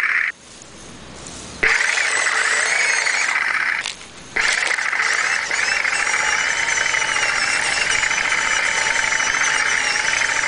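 Radio-controlled airsoft model tank running, its small electric drive motors and gearboxes giving a steady high whine. The whine cuts out just after the start for about a second and briefly again around four seconds in, then runs on.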